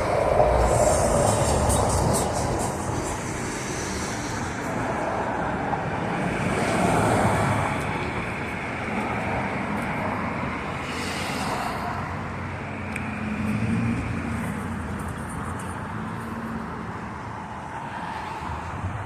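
Street traffic noise: a steady wash of road noise with vehicles passing by. It swells near the start, around seven seconds in, and again around fourteen seconds in.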